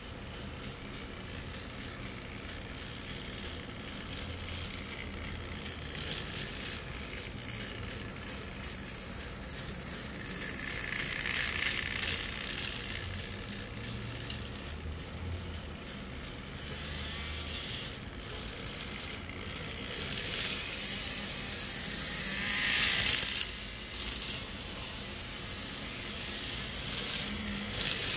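Small electric motor and wheels of an N scale Peter Witt streetcar model running on tram track: a steady whirring hiss that swells twice as the car passes closer.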